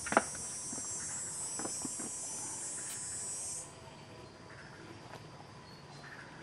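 Steady high-pitched insect drone, like a cicada chorus, that cuts off suddenly about three and a half seconds in. A single sharp knock sounds just after the start.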